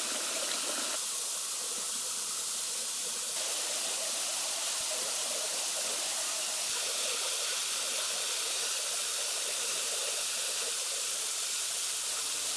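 Waterfall water rushing in a steady hiss, with no separate hits or tones.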